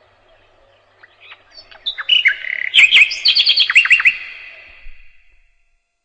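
A nightingale singing: a fast phrase of repeated, sharply falling whistled notes that starts about a second in, is loudest in the middle, and fades away near the end.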